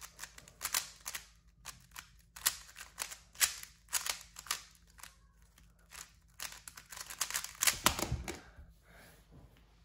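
QiYi Valk Power M 3x3 speed cube being turned fast by hand in the last-layer steps of a timed solve: quick irregular bursts of plastic clicks and clacks, with a louder thump about eight seconds in.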